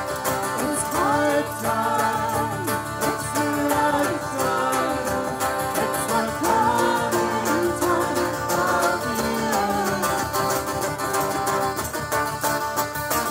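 Live acoustic folk band: a woman's lead vocal over strummed acoustic guitar and a plucked mandolin-family instrument, with light hand percussion.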